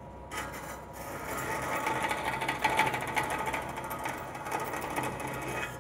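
Vertical bandsaw running with a steady motor hum while its blade cuts the mounting post off the back of a car emblem. The rasping cutting noise starts just after the beginning and stops near the end.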